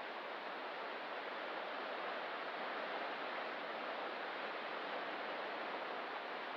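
Distant ocean surf as a steady, even wash of noise.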